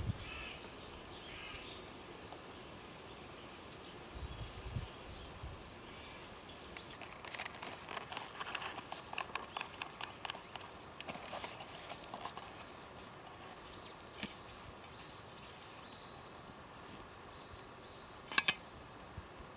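Quiet outdoor ambience with spells of crackly rustling and clicking, and two sharp clicks near the end.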